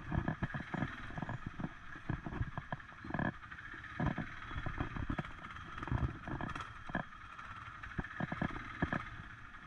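ATV (quad bike) engine running while riding along a rough path, with many irregular low thumps and knocks throughout.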